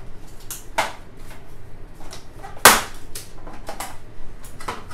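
Scissors snipping through plastic zip ties binding plastic footrest parts: several short, sharp snaps and clicks, the loudest about two and a half seconds in.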